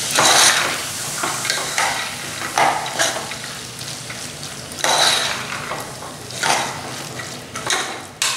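Spoon stirring field beans through a tomato masala in a metal pot: repeated scraping strokes against the pot every second or two, over the steady sizzle of the masala frying in oil.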